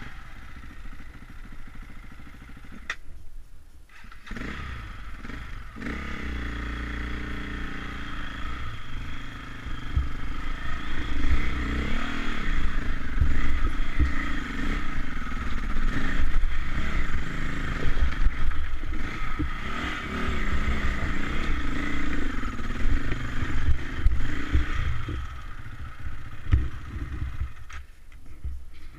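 KTM enduro motorcycle engine being ridden up a steep, rocky track, its revs rising and falling with the throttle, over the clatter of tyres on loose stones. The engine note comes in strongly about four seconds in, gets louder, and drops away near the end.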